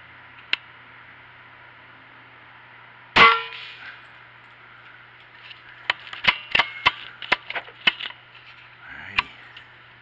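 A single shot from a Benjamin Armada .22 PCP air rifle about three seconds in: a sharp crack, the loudest sound, with a short ringing tail. A few seconds later comes a quick, irregular run of about eight sharp clicks, with one more shortly after.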